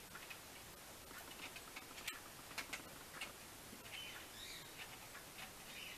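Faint, irregular small clicks of fingers fitting a clock hand onto the shaft of a wall clock's movement. Faint bird chirps come in a little after the middle and again near the end.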